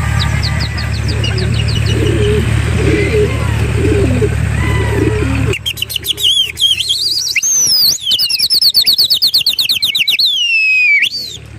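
A steady low hum with faint bird calls, which cuts off abruptly about five and a half seconds in. Then small birds chirp busily: quick high trills and down-slurred whistles.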